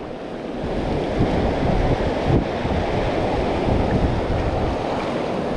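Fast river rapids rushing steadily, mixed with wind buffeting the microphone.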